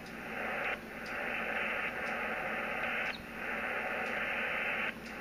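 Yaesu FT-857D transceiver on 40-metre LSB hissing with band noise through its speaker, a steady rush cut off above and below the voice band, dipping briefly three times. It is the magnetic loop's received noise as the loop's tuning capacitor is rolled for maximum receive.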